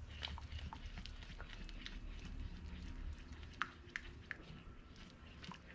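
Faint clinks of a spoon against a saucepan while stirring a thick cream sauce, with several sharper taps in the last two seconds. A low hum stops about three seconds in.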